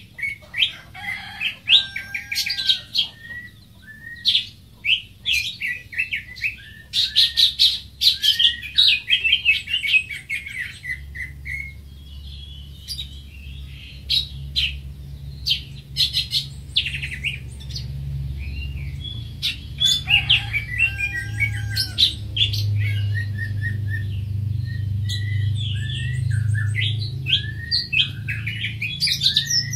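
Greater green leafbird singing: a fast, varied run of chirps, sweeping notes and warbles with brief pauses between phrases. A low hum sits underneath through the middle stretch.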